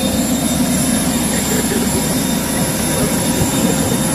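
Private jet's turbine engines running: a steady, loud rush with thin high whining tones over it.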